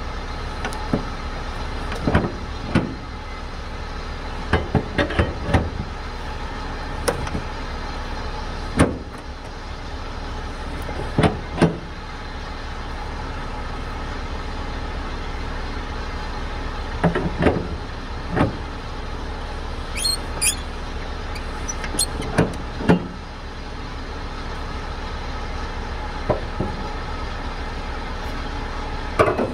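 A truck engine idling steadily, with sharp metal clanks and knocks at irregular intervals over it: a steel winch bar working the strap winches on a flatbed trailer.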